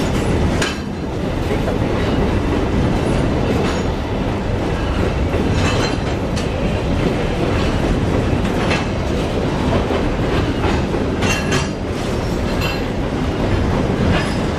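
Freight train of curtain-sided pulp boxcars rolling past close by: a steady, loud rumble of steel wheels on rail, with a scattering of short sharp clacks as wheel sets cross the rail joints.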